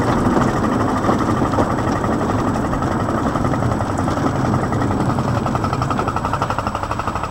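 Engine of a small ride-on miniature railway locomotive running with a fast, even putter while the train moves along.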